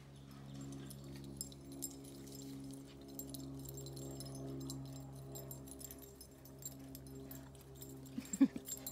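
Faint background music of held, slowly shifting tones, with light high jingling throughout. Near the end a dog gives a short, sharp yip.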